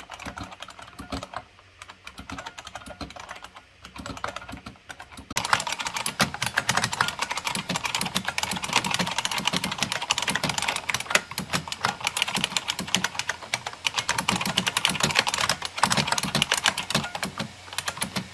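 IBM Model M buckling-spring keyboard being typed on fast, a dense stream of sharp key clicks. About five seconds in, the typing becomes much louder and denser.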